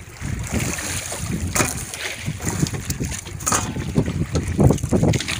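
Wind buffeting the microphone with an uneven low rumble, and two sharp knocks, about a second and a half and three and a half seconds in.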